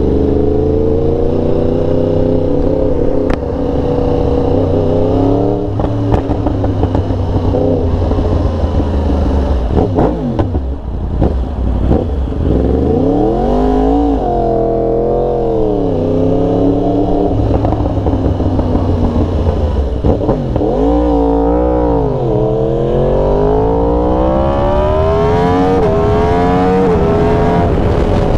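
A 2023 Yamaha R1's crossplane inline-four accelerating hard through the gears: the engine note climbs, falls back at each gear change and climbs again, several times over, ending in one long rising pull in the last six seconds.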